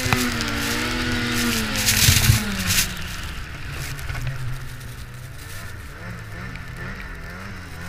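Ski-Doo 800 two-stroke snowmobile engine running hard under throttle, then easing off about three seconds in, its pitch and loudness dropping to a lower, wavering run. Two brief loud bursts of hiss come near the start and about two seconds in.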